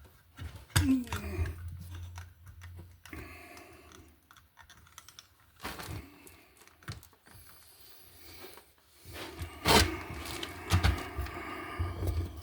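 Irregular small clicks and taps of electrical wiring being handled in a box, with a denser, louder run of clicks near the end.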